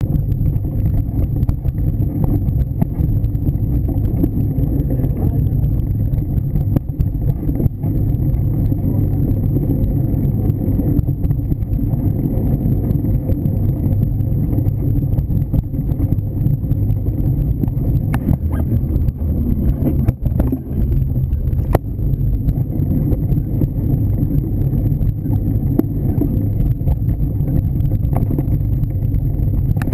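Mountain bike rolling over a bumpy dirt trail, heard from a camera mounted on the bike: a steady low rumble of tyres on dirt and wind on the microphone. A few sharp knocks and rattles from bumps come about two-thirds of the way through.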